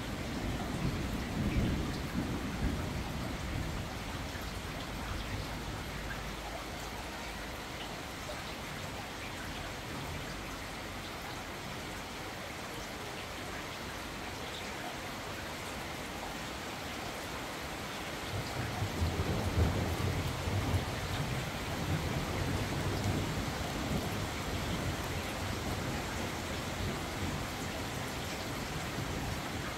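Steady rain falling, with distant thunder rolling twice: briefly in the first few seconds, then a longer roll from about 18 seconds in.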